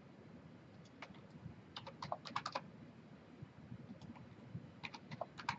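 Computer keyboard typing, faint, in short quick runs of keystrokes about a second in, around two seconds in and near the end, as a value is typed into a dimension box.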